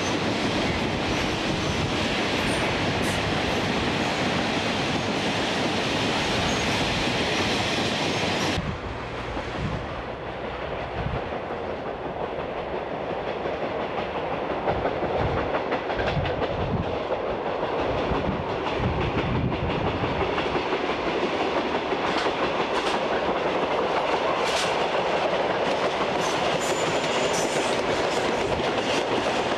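Diesel-hauled coal train of loaded hopper wagons rolling past, the wagons' wheels clattering over the rail joints. The sound changes abruptly about eight seconds in, then goes on as steady rolling with repeated low knocks.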